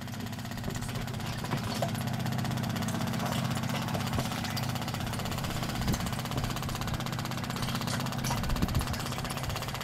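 Waste-oil distillation unit's machinery running steadily: a low drone with a fast, fine rattling pulse, a sign the unit is running stably.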